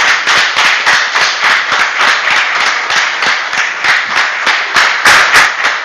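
A small group of people applauding, with many overlapping hand claps.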